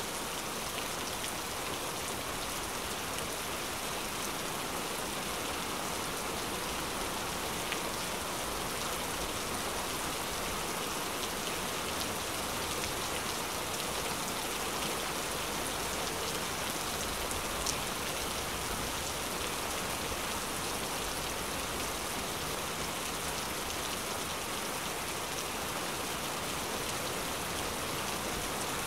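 A steady, even hiss like falling rain, with faint scattered ticks and no change in level.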